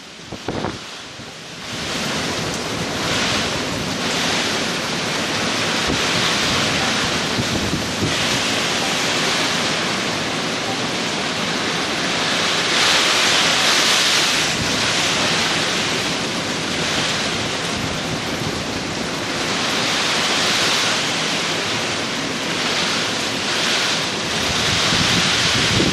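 Typhoon winds blowing hard, buffeting the microphone. The dense rushing noise comes up about a second and a half in, then swells and eases with the gusts.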